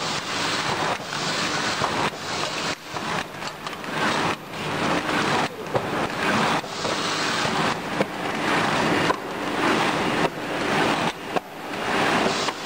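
Automatic cartoning machine for LED bulbs running: a dense mechanical clatter that swells and drops in a regular cycle about once a second.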